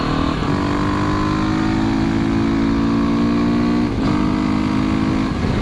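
KTM dual-sport motorcycle engine running at a steady pitch while riding, with rushing wind noise. There is a short dip in the engine note about four seconds in, then it goes on at the same pitch.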